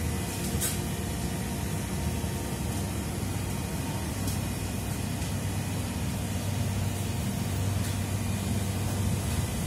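A steady low mechanical hum under a faint hiss.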